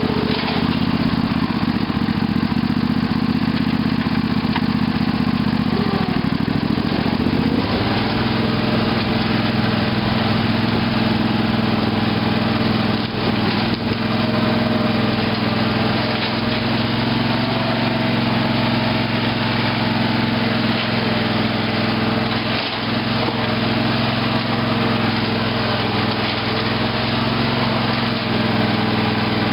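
Craftsman lawn tractor's Briggs & Stratton 18.5 hp Intek engine running steadily while the tractor drives off-road. The engine note shifts about seven and a half seconds in, then holds steady.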